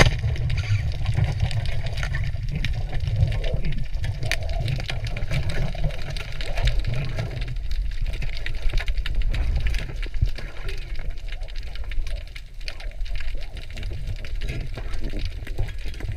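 Underwater sound picked up by a GoPro in its housing: a steady low rumble of water moving around the camera as the diver swims, with many scattered crackling clicks over it.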